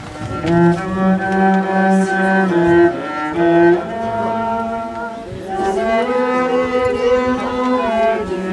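A bowed string instrument played live in a slow melody of long held notes, its lowest notes in the cello's range, changing pitch every second or so.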